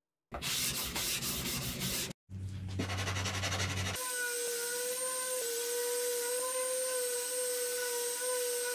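A block rubbing on the wood for a couple of seconds, then from about four seconds in a random orbital sander running steadily on the plywood cabinet top, with a steady whine.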